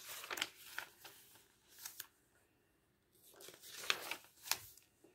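Pages of a paper catalogue being turned: faint paper rustling at the start and again later, with two sharp page flaps about four seconds in.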